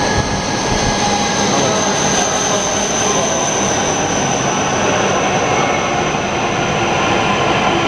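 A train running through a station: a steady, loud rumble of wheels and machinery with a thin, steady high whine over it.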